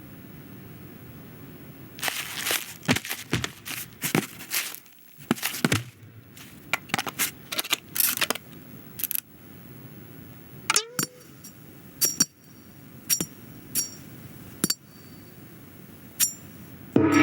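Animated-film sound effects: a run of quick clicks and taps, a short rising glide, then several separate, sharp metallic pings about a second apart.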